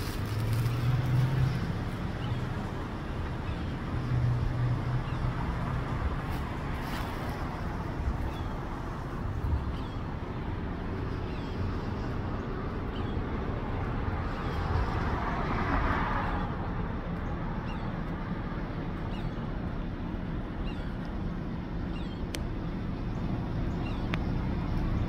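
Road traffic: a steady low rumble, with a car passing most clearly about fifteen seconds in.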